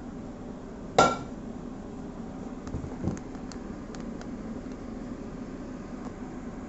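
A single sharp clink of hard dishware with a short ring about a second in, then a few faint ticks and taps, over a steady low hum.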